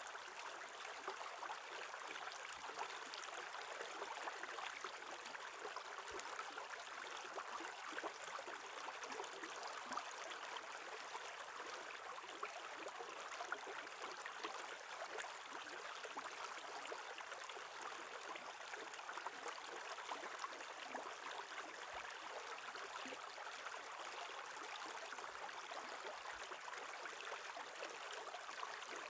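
Shallow stream flowing steadily over stones beneath an edge of ice: a faint, even rush of water.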